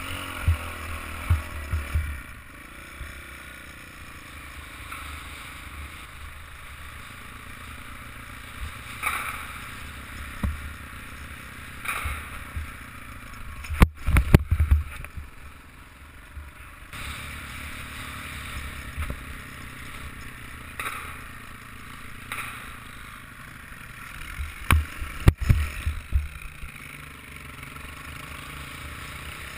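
Off-road dirt bike engine running steadily beneath a helmet camera while riding over rough, muddy grass, with wind rumble on the microphone. Clusters of hard knocks and jolts come about halfway through and again near the end.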